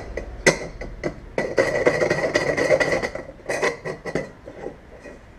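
Fine rat-tail file rasping around the centre hole of a brass headlight bucket. A few sharp single strokes and a denser run of filing in the middle make the thin metal bowl ring with a steady high tone.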